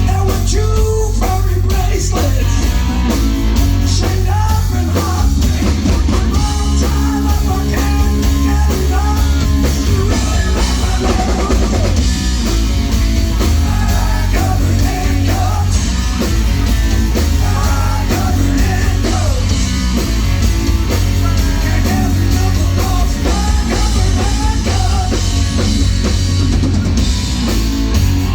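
Live blues-rock band playing a song at full volume, with a drum kit and electric guitar over a heavy bass line.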